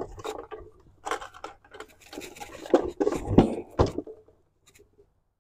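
Handling noise from a PKM belt-fed machine gun on its bipod: scattered clicks, knocks and scrapes as the shooter settles in behind it, stopping about four seconds in.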